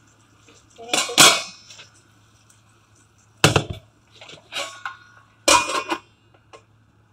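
Cookware clattering: a glass pot lid with a metal rim is handled and set down onto a wok. There are four clanks with a short metallic ring, about a second apart or more, over a low steady hum.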